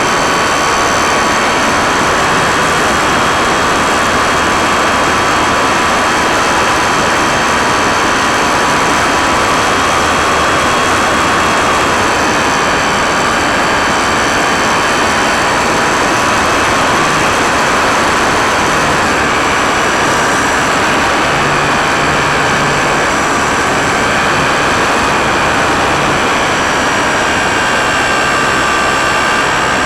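Electric motor and propeller of an E-Starter RC airplane running steadily, with wind rush, recorded by a camera mounted on the plane. A high whine of several steady tones drifts slightly up and down in pitch over a constant rushing noise.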